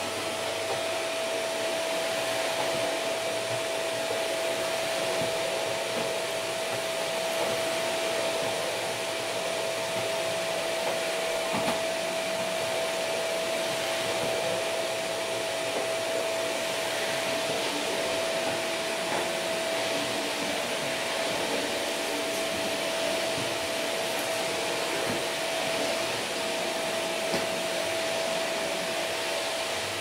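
Vacuum cleaner running steadily over carpet: a constant rush of air with a steady whine held at one pitch, and a few faint clicks.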